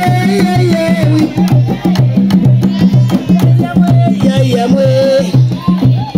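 Loud dance music with a steady pulsing bass and drum beat and a held melody line over it.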